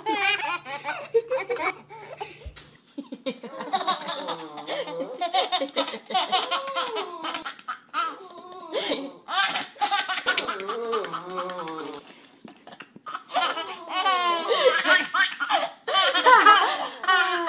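A baby laughing in repeated bouts of rapid, high laughter, with short pauses between the bouts.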